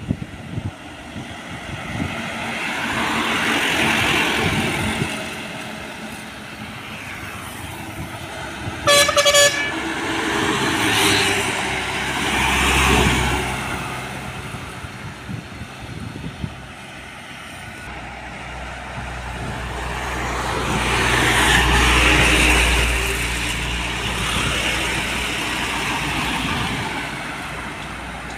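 Trucks and cars passing on a highway, each pass rising and fading away, the heavier trucks with a deep diesel rumble. About nine seconds in, a vehicle horn sounds a short blast, the loudest sound.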